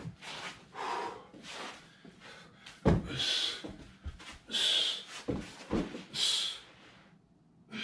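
A man's forceful, hissing exhales during solo grappling drills, several in a row. A heavy thud about three seconds in and softer thumps of his body moving on a carpeted floor.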